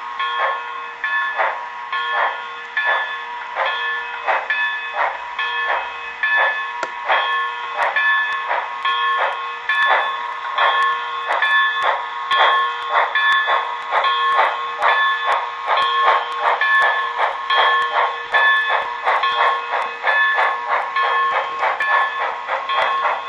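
Sound-equipped HO scale model of a Canadian Pacific 0-8-0 steam switcher, running with a steady rhythmic chuff of about two to three beats a second that quickens slightly. Over it comes a repeated metallic ringing, like the locomotive's bell.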